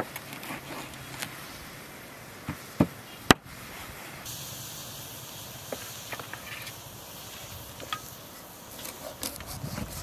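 Large kitchen knife chopping fish on a wooden cutting board: a few sharp knocks, the loudest a little over three seconds in, over a faint steady outdoor hiss.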